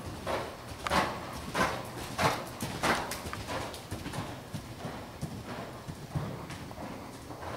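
Hoofbeats of a ridden Oldenburg gelding on the dirt footing of an indoor arena, a regular rhythm of about one and a half strikes a second. The strikes are loudest in the first half and grow fainter after about three and a half seconds as the horse moves away.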